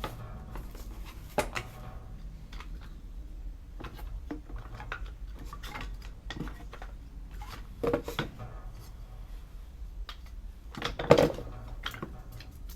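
Split oak firewood being handled, pieces knocking and clattering against each other in irregular knocks, with louder knocks about a second and a half in, about eight seconds in and about eleven seconds in.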